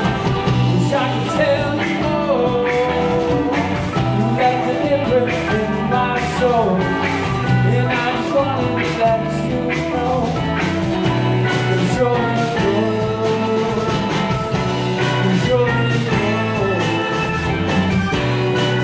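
Live rock band playing: two electric guitars, electric bass, keyboard and drum kit.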